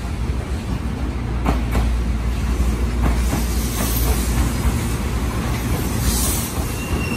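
Tobu 8000-series electric train running past close by, with a steady low rumble and sharp wheel knocks over rail joints and points, at about one and a half, one and three-quarter and three seconds in. A brief hiss or squeal rises near the end.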